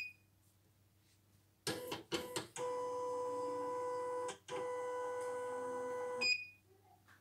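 CNY E900 computerized embroidery machine: a short touch-screen beep, a few clicks, then its motors running with a steady whine for about three and a half seconds, broken briefly in the middle, ending with another beep.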